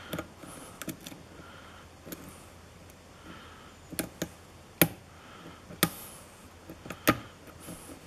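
A steel hook pick working the pins inside a tensioned brass lock cylinder: soft scraping with irregular sharp metallic clicks, about one every second or so.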